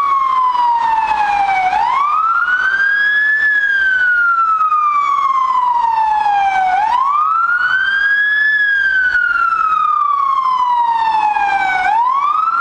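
Fire engine siren wailing: each cycle sweeps quickly up in pitch, then falls slowly for about three seconds before rising again. The rises come about two seconds in, about seven seconds in and near the end.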